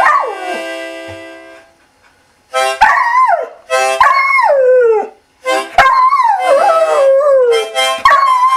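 Red Australian Cattle Dog howling along with a harmonica. A held harmonica chord fades under a falling howl at the start, then after a short pause come four long howls that slide down in pitch, each set off by a brief harmonica chord with a sharp knock at its start.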